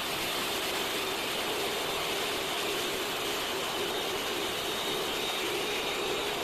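Electric mixer running steadily at speed, beating a sponge-cake batter of eggs, flour and sugar.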